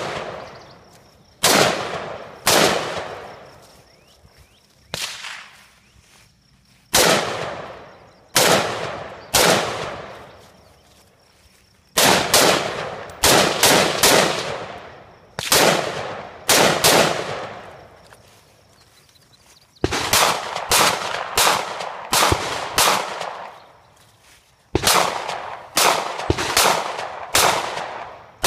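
Semi-automatic gunfire from an AR-15-style rifle, single shots and quick strings of two to five, each shot trailing off in a long echo. Near the end a 9mm pistol fires a steady string of about two shots a second.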